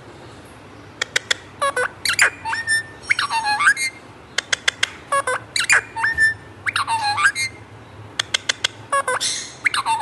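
Alexandrine parakeet calling: a fast run of sharp clicks and short gliding squawks in groups, starting about a second in.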